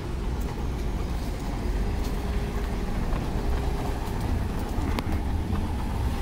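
Steady low outdoor rumble of wind or distant traffic, with a sharp click about five seconds in.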